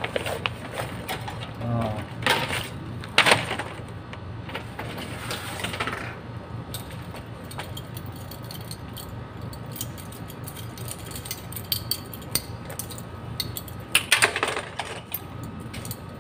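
Scattered clicks and rattles of hands working wires and terminal screws, clustered about two to six seconds in and again near the end, over a steady low hum.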